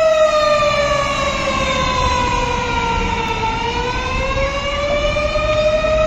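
Fire engine's mechanical siren wailing, its pitch sinking slowly for about three and a half seconds and then winding back up, with a low rumble underneath.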